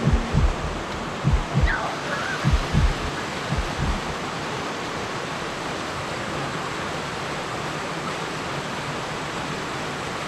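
Steady rush of creek water, with several low thumps in the first four seconds.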